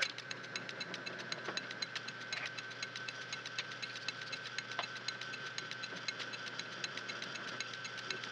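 1921 Dalton B4 metal lathe running while a tailstock-held drill bit bores into a steel bolt: a steady whine over a low hum, with a fast, even ticking.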